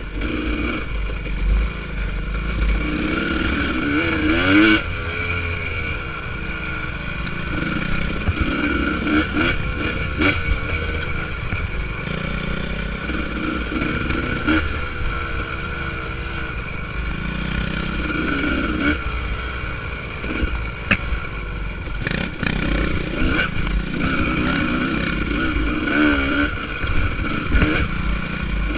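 Honda CR250R two-stroke single-cylinder dirt bike engine revving up and down over and over as the throttle is worked through the trail. A few sharp knocks come through, the loudest about three-quarters of the way in.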